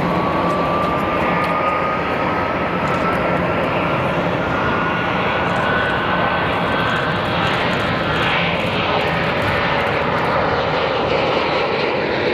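Boeing 737-300's CFM56-3 turbofan engines at takeoff thrust through the takeoff roll and lift-off: steady, loud jet noise with a thin fan whine that rises slowly in pitch over the first several seconds.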